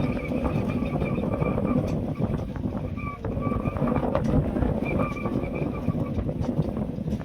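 Wind buffeting the microphone, with a faint steady high whine that drops out and returns several times.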